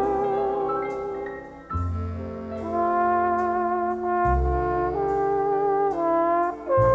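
Slow instrumental background music: long held melody notes over a deep bass note that changes about every two and a half seconds.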